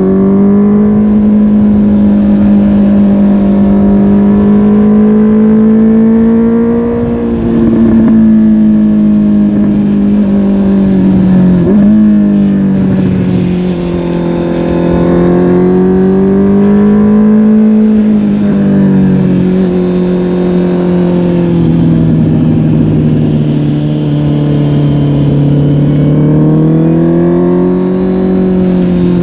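Honda CB650R's inline-four engine through a MIVV GP PRO Carbon aftermarket exhaust, heard from the rider's seat while riding. The revs rise and fall gently and slowly, with a sudden brief dip and recovery about twelve seconds in.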